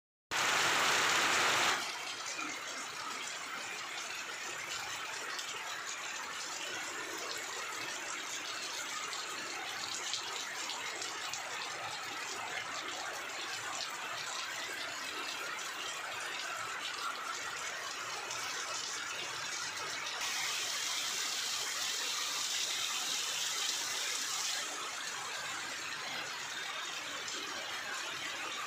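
Heavy rain pouring steadily on trees and foliage, an even dense hiss. It is louder for the first second or so, and the hiss turns brighter and louder for about four seconds from twenty seconds in.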